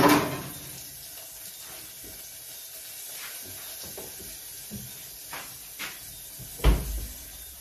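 Sliced frankfurter sausage frying in oil in a pot, a steady sizzle. A sharp knock right at the start, a few light clicks, and a loud heavy thump near the end.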